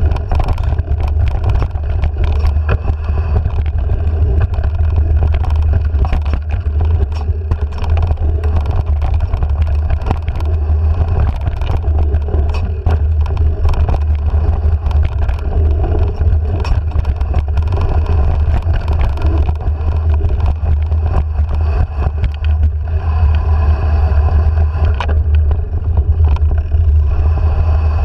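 Mountain bike riding down a dirt trail: steady heavy wind rumble on a handlebar-mounted camera's microphone, with many quick knocks and rattles as the bike jolts over bumps.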